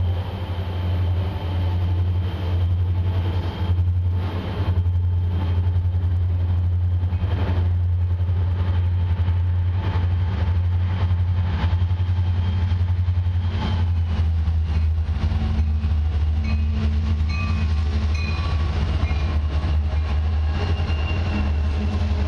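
Long freight train behind four diesel-electric locomotives approaching and passing slowly: a steady low engine drone, with the wheels clicking over the rail joints as the locomotives go by.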